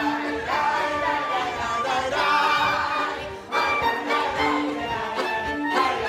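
A small live band of clarinet, accordion and violin playing a lively dance tune, with a brief drop in level about three and a half seconds in before the music picks up again.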